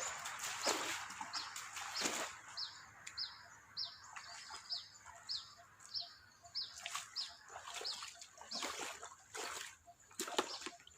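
A bird calling over and over in short falling chirps, about two a second, while water splashes and sloshes in irregular bursts in a drained, shallow pond.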